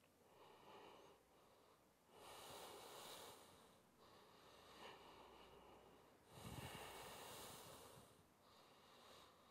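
Faint, slow, deep breathing in and out through the nose, each breath lasting a second or two. The strongest breaths start about two seconds and six seconds in.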